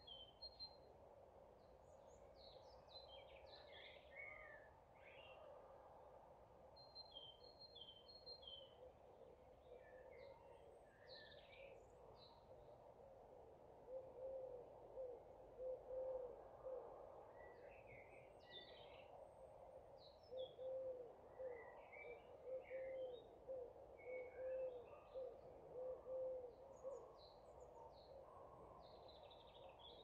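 Faint evening birdsong: several small birds chirping and singing in short high phrases throughout, over a steady faint background hiss. In the second half, a low hooting call repeats in two runs of short notes, roughly one or two a second.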